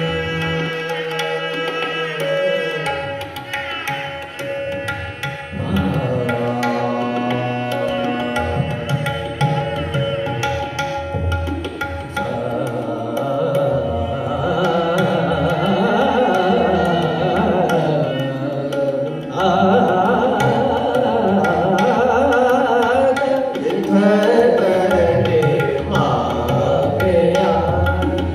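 Gurbani kirtan in raag: a bowed string melody with held notes and sliding phrases over jori drums. It opens on long sustained tones and moves into a winding melody after about six seconds.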